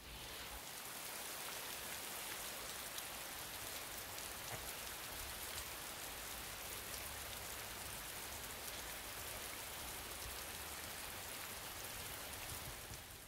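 Shower running in a tiled shower stall: a steady hiss of water spray falling on the tiles, cutting in and out abruptly at the start and end.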